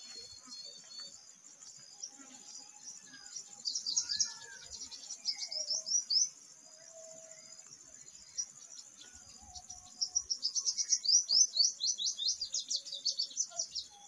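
Purple sunbird singing: two bursts of rapid, high, sweeping twittering notes, the second longer and louder, over a steady high insect drone and faint calls of other birds.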